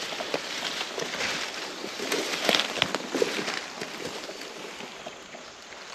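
Crackling rustle of dry leaves and brush with many small snaps, starting abruptly and loudest around the middle.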